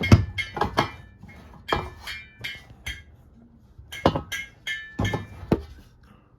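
A series of sharp metallic clinks and knocks with a brief ring, in clusters of a dozen or so strikes, as the ceiling fan's metal housing is handled; they stop near the end.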